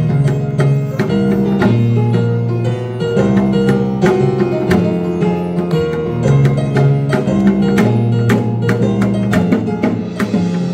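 Korean traditional gugak ensemble music: held low melodic notes over a steady beat of drum strokes.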